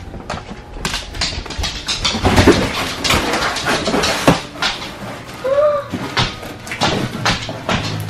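A cardboard box being handled and opened: rapid rustling and knocking of cardboard and packing as hands dig into it. A short squeak that rises and falls comes about five and a half seconds in.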